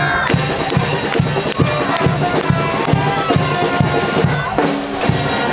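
A cheering-section band plays a cheer song, with pitched instruments over a bass drum keeping a steady beat of about two and a half strokes a second.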